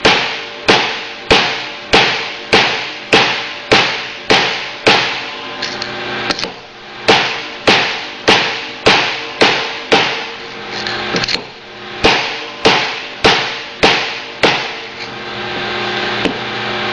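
Hammer blows driving a new wear sleeve onto a worm gear reducer's worm shaft through a driver. The strikes come steadily, under two a second, each with a metallic ring, pausing briefly twice.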